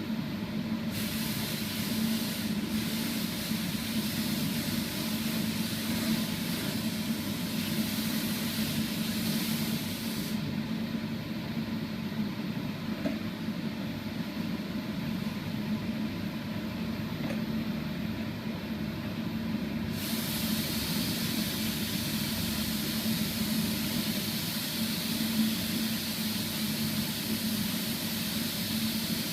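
Air spray gun hissing as sanding sealer is sprayed, over a steady low machine hum. The hiss cuts out abruptly for about ten seconds in the middle, then starts again.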